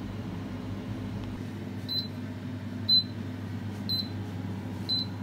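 Hutt D9 dual-basket air fryer beeping its end-of-cooking alarm, short high beeps about once a second starting about two seconds in, a sign the cooking time is up. Its fan keeps up a steady hum underneath.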